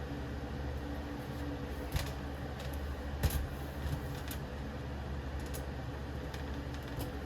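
A few sharp light clicks and taps, spread a second or so apart, as the rear grill and its screws are fitted back onto a box fan by hand, over a steady low background hum.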